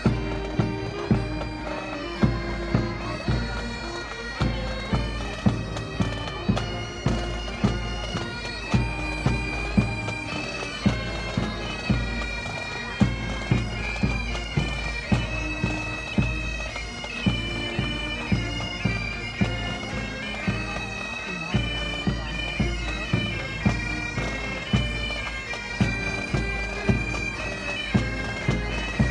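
Pipe band playing: bagpipes sound a melody over their steady drones, with a regular drum beat underneath.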